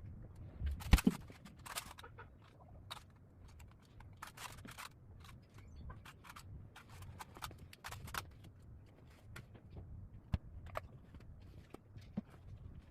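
Irregular clicks, taps and short scraping sounds of hand work on a bench being reupholstered, with a louder knock about a second in.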